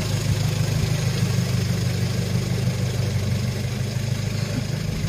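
Off-road 4x4's engine running at a steady idle, its pitch holding even.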